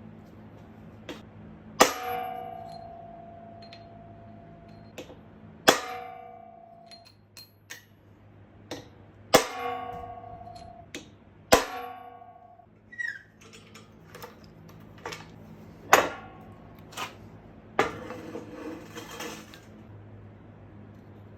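Metal parts and tools clanking in a workshop: about half a dozen sharp metallic clangs, several ringing on for about a second, with lighter knocks between them and a faint steady hum underneath.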